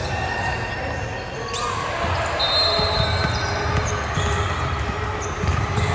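Game sounds in a gym during a youth basketball game: a basketball bouncing in low thumps, short high sneaker squeaks, one held for about a second midway, and background voices from players and spectators.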